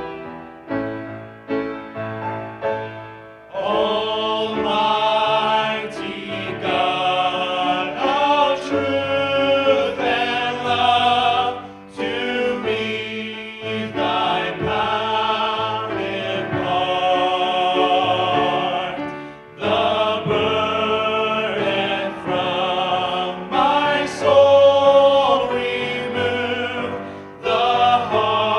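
A vocal group singing a gospel song in harmony with instrumental accompaniment. The voices come in about three and a half seconds in, after a short instrumental lead-in, and sing long held notes with vibrato.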